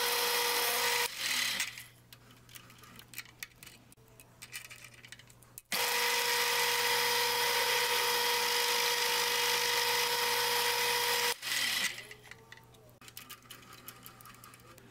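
Harbor Freight X2 mini mill spindle running with a steady whine while a center drill and then a small drill bit cut into round metal bar stock. The machine sound stops about a second in and leaves light clicks and handling. It starts again suddenly near the middle, runs for about six seconds and stops.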